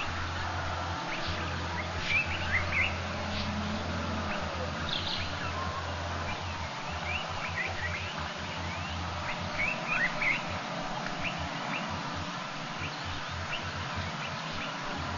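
Birds chirping: many short, high calls scattered throughout, with louder bursts about two seconds in and again around ten seconds, over a low hum that cuts in and out.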